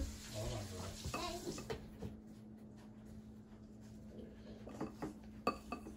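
Wire whisk stirring batter in a stainless steel mixing bowl, with a few sharp clinks of metal on metal in the last second or so.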